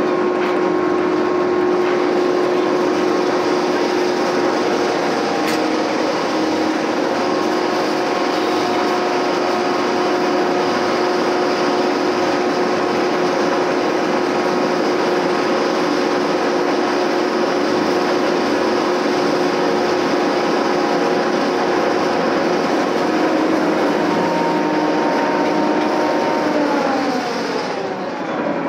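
Roller coaster chain lift running as a loaded train climbs the lift hill: a steady mechanical drone with several held tones. Near the end the tones slide down in pitch and the sound fades as the train reaches the top.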